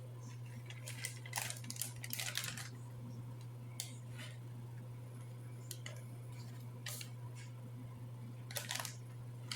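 Hands scattering cranberries onto bread dough and pressing them in: a few brief, soft handling sounds over a steady low electrical hum.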